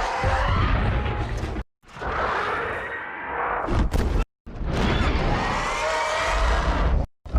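Film sound effects of the monster Rodan: three separate screeching cries cut apart by short silences, each with a wavering, gliding pitch over a deep rumble. A sharp crack comes near the end of the second clip.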